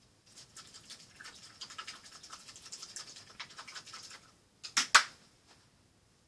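Hands rummaging through painting supplies: a run of light rustling, clicks and taps for about four seconds, then two sharp knocks close together near the end.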